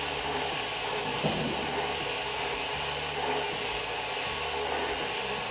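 800FL vapor honing cabinet blasting an aluminum heat sink with glass-bead slurry at 90 PSI: a steady hiss of compressed air and slurry from the blast gun. One brief knock just over a second in.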